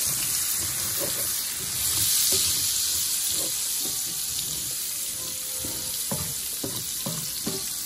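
Diced onion and garlic sizzling in butter in a cast-iron skillet, with a steady hiss throughout, while a wooden spatula stirs them and scrapes against the pan in short, irregular strokes.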